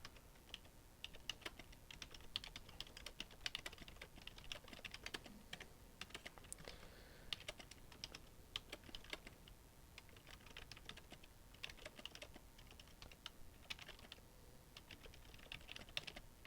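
Typing on a Logitech K480 Bluetooth keyboard: faint, irregular runs of key clicks with short pauses between them.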